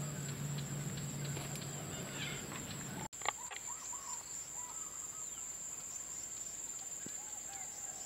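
Insects keeping up a steady high-pitched drone, with short bird chirps over it. Now and then there is a sharp click, and a brief dropout about three seconds in is followed by one sharp knock.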